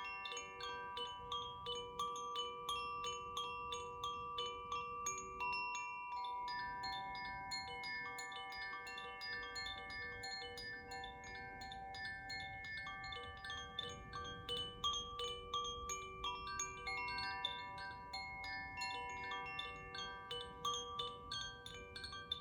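Koshi chimes tinkling continuously, their tuned rods struck in quick, irregular succession, with clear ringing tones that overlap and hold beneath the strikes.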